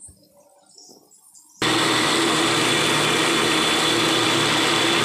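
Electric mixer grinder switched on about a second and a half in and running steadily with a constant whine, grinding onion, tomato, garlic and ginger into a wet masala paste. Faint knocks of the jar and lid being handled before it starts.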